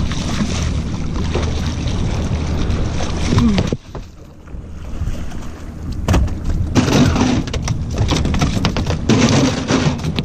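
A big bluefish being landed on a small fishing skiff: a steady low rumble that cuts off abruptly a little under four seconds in, then a run of sharp knocks and thumps on the boat.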